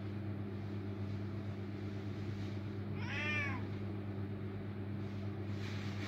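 A domestic cat meowing once, about three seconds in, in a single call that rises and then falls in pitch. A steady low hum runs underneath.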